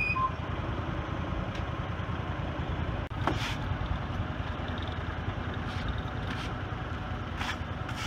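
Forklift engine idling steadily, with a few short scratchy strokes of a push broom sweeping sawdust off a fresh-cut walnut slab from about three seconds in.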